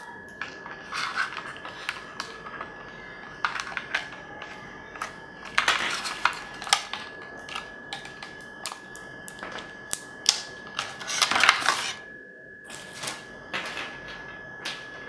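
Clear plastic packaging crinkling and clicking as in-ear earphones and their cable are pulled from a plastic tray and bag, in irregular bursts, loudest about six and eleven seconds in. A faint steady high whine runs underneath.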